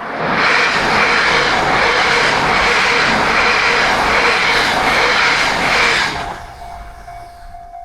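E6 series Komachi mini-shinkansen passing through a level crossing: a loud rush of wheels and air that comes in suddenly, holds for about six seconds and then falls away. The crossing's warning bell keeps ringing in quick repeated dings, heard again as the train noise drops off near the end.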